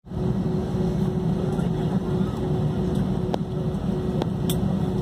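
Jet airliner cabin noise on the ground: a steady low engine rumble with a constant hum, and a few light clicks in the second half.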